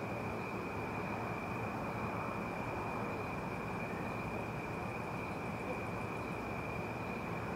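Steady hiss and low rumble with a constant high-pitched whine over it, unchanging throughout.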